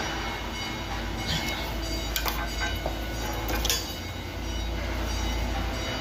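Steady low rumble of background machinery with a faint hum, and a couple of light clicks from a screwdriver and wires being worked at the terminals of a 3-phase junction box, about two seconds in and again near four seconds.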